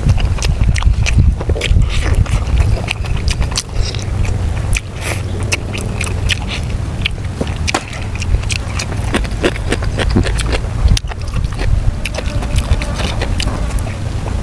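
Close-miked chewing of soft stewed pork: wet smacking and clicking mouth sounds at an irregular pace, over a steady low rumble.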